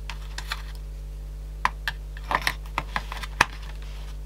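Scattered small clicks and short scrapes of hands working on a Sanyo M-G95 cassette Walkman and its parts, over a steady low hum.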